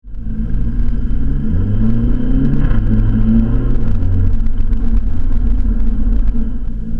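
VW Golf GTI Mk6's turbocharged 2.0-litre four-cylinder through a 2.5-inch stainless steel catback exhaust, pulling under acceleration. The engine note rises, then about three seconds in it drops with a short blat at a DSG upshift (a "DSG fart"), then runs on fairly steadily.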